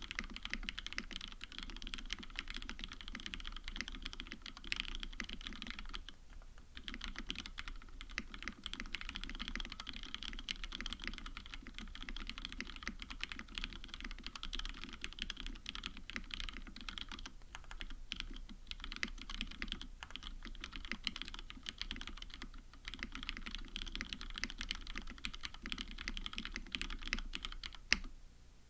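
Fast continuous typing on a KBD75 mechanical keyboard with lubed retooled Cherry MX Black linear switches, plateless in a tray mount, with JTK keycaps: a dense stream of key clacks. There is a brief pause about six seconds in and one sharper, louder click near the end, just before the typing stops.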